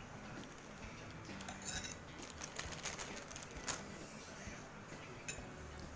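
Clear plastic bag crinkling as noodles are tipped out of it, with light clicks and clinks of chopsticks against a bowl that come thickest in the middle.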